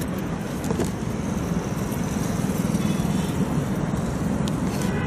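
Steady low rumble of city street traffic, with a couple of faint clicks from the shoe being handled.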